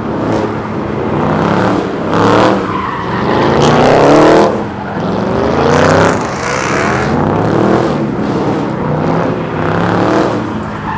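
Car engine revving hard over and over, its pitch climbing and dropping in repeated surges, as the car spins donuts on loose dirt. The loudest rev comes about four seconds in.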